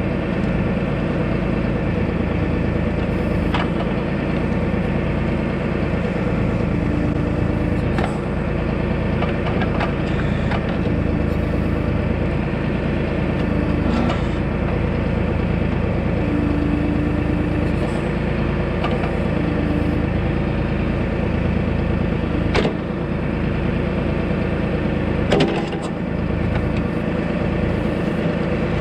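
Tractor engine running steadily while working dirt with the backhoe or bucket, with a low tone that comes and goes several times and a few sharp knocks.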